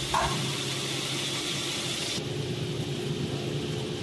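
Steady motor hum from a CNC double-head aluminium cutting saw, with a high hiss that stops abruptly about two seconds in and a short blip just after the start.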